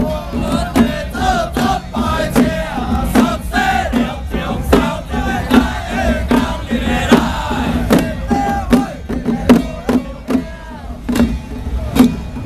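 Taiwanese small ritual-drum (xiao fagu) troupe: handheld drums and other percussion struck on a steady beat, about one stroke every second, while the performers chant and shout together.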